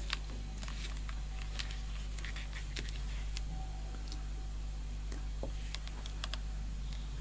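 Small scattered plastic clicks and taps from handling a digital clamp meter's test leads and probes, over a steady low hum.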